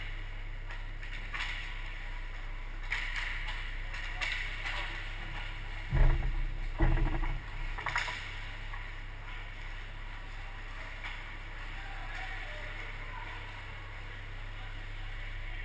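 Ice hockey rink sound: a steady low hum with skates scraping and sticks clicking on the ice. Two loud heavy knocks about six and seven seconds in, with a smaller one just after, as play crowds the goal right by the camera.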